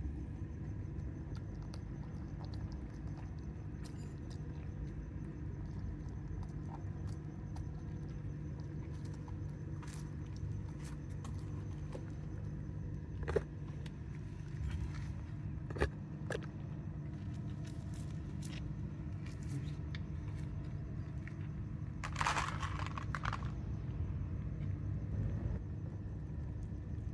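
A steady low rumble of city traffic, with scattered small clicks and a short rustling noise near the end.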